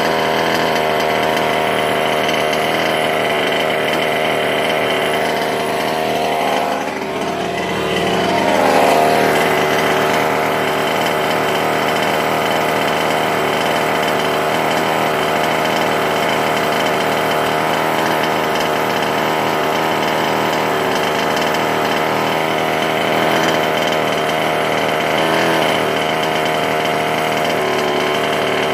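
Small two-stroke gas engine of a 1/5-scale RC car running steadily, with a brief dip and rise in pitch and loudness about seven to nine seconds in.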